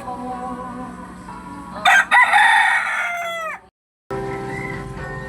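A rooster crowing once, a loud call of about a second and a half whose pitch drops away at the end, cut off abruptly.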